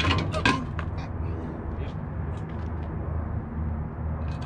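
A steady low engine hum, like an idling truck, with a cluster of sharp metal clanks in the first half second and a few lighter taps later, as parts of the concrete pump are worked apart.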